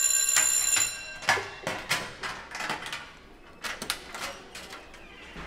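An electric school bell rings and cuts off about a second in. Then come a run of short clicks and metallic rattles as a metal school locker's combination lock and latch are worked and the door is pulled open.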